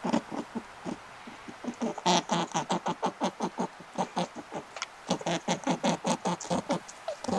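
An animal making a rapid run of short calls, about five a second, with a brief pause about a second in.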